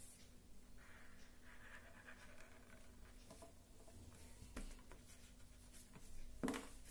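Faint scratching of a black sketch pen drawing strokes on paper on a clipboard, followed by a few light clicks and taps, the loudest near the end.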